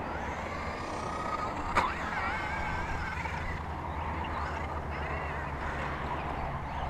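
Electric RC rock racer's motor whining, its pitch wavering up and down with the throttle. A sharp knock comes about two seconds in.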